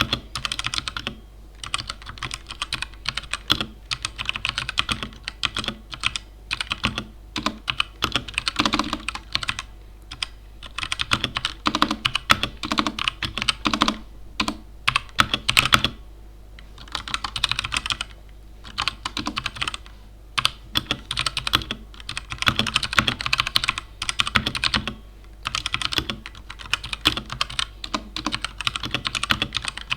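Mechanical keyboard with Gateron Brown tactile switches being typed on: fast, irregular runs of keystrokes in bursts of a few seconds, with short pauses between them.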